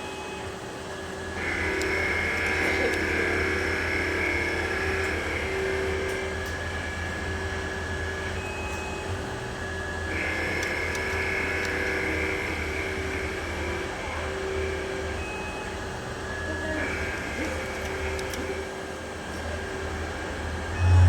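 CNC lathe turning a metal shaft: a steady machine hum, with a high whine from the cut that starts about a second and a half in and drops out and comes back several times.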